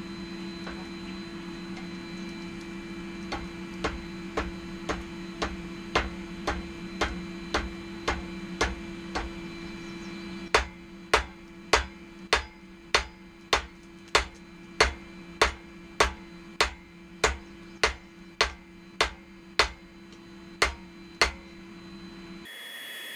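Hand hammer forging a steel knife blank on an anvil, hammering down steel that is too thick. Evenly paced blows, a little under two a second: lighter at first, then after a short pause about ten seconds in, heavier and louder. A steady low hum runs beneath.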